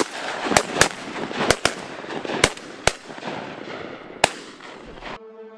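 Shotguns firing at geese flying over: about eight shots in quick, uneven succession from more than one gun, each with a rolling echo. The gunfire cuts off suddenly about five seconds in, and music takes over.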